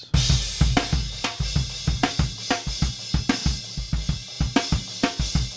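Multitrack recording of an acoustic drum kit played back: kick, snare and hi-hat in a busy, steady beat under a constant wash of cymbals.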